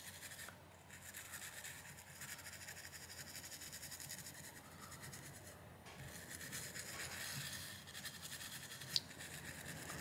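Toothbrush bristles scrubbing isopropyl-wet old thermal paste off a graphics card's GPU die, a faint, steady scratchy rubbing with a brief pause about halfway through. A single sharp tick comes near the end.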